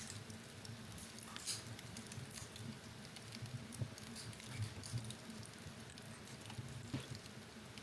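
Wood fire in a fireplace crackling with scattered small pops over a low steady rumble, with a sharper pop about a second and a half in and another near the end.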